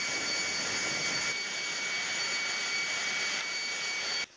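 Jet engine running steadily on the ground: a loud, even rush of hiss with a steady high-pitched whine over it. It cuts off suddenly near the end.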